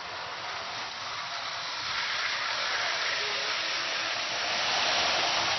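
Toy electric train set running on its track, a steady hiss that slowly grows louder.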